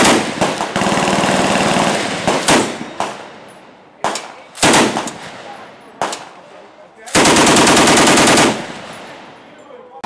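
Browning Automatic Rifle firing full-auto from the shoulder. A long burst of about two seconds opens, a few short bursts follow, and another long burst of about a second and a half comes near the end.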